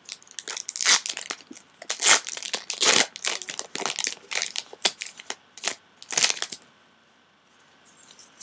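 A foil-lined Pokémon booster pack being torn open by hand, its wrapper crinkling and ripping in a quick run of rustles that stops about six and a half seconds in.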